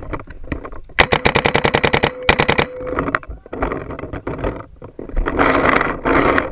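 Paintball marker firing a rapid volley of about a dozen shots a second for just over a second, then a short second burst of about five shots, with a steady tone beneath the firing.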